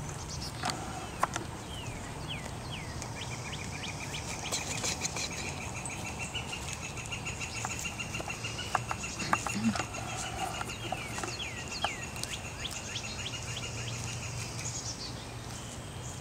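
Outdoor birdsong: short downward-sliding chirps, with a long, even, high trill that starts about three seconds in and stops near the end, and a few sharp clicks.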